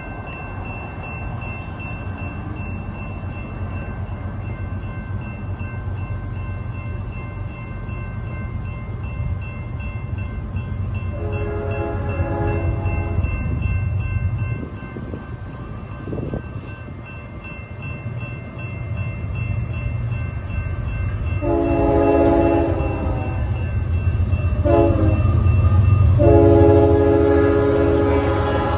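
Approaching BNSF freight train with several diesel locomotives, their rumble growing steadily louder, sounding its horn for the grade crossing: one long blast about 11 seconds in, then long, short and a final long blast from about 21 seconds on, getting closer and louder. A grade-crossing bell rings steadily underneath.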